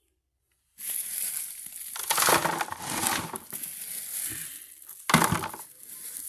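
Swept rubbish and sand being scraped up and scooped into a small basin: a rough, crunching scrape with louder surges about two and five seconds in.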